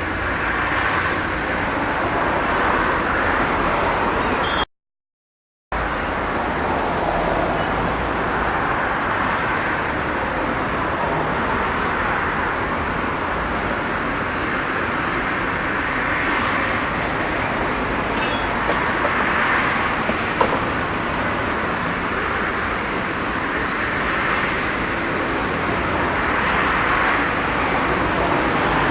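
Steady rushing background noise that swells and eases every few seconds, broken by about a second of total silence near the start.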